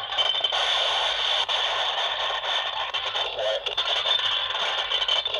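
Cut-up audio played back through the small speaker of an Olympus micro-cassette recorder, muffled by a board box and a ball of wool: a thin, dense, noisy jumble with no bass.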